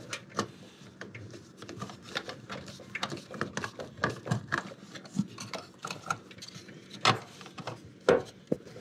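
Hand screwdriver backing a screw out of a dishwasher's sheet-metal junction box, with irregular clicking and scraping of the driver and metal parts. The screw was run down once to cut its threads so it goes in easier the second time. Two louder knocks come near the end.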